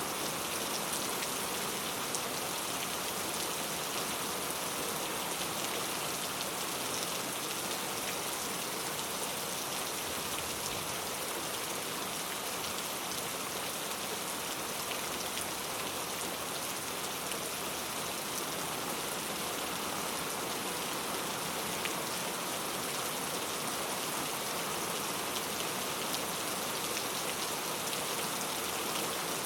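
Heavy rain falling steadily: a dense, even hiss of rain with fine pattering drops and no thunder.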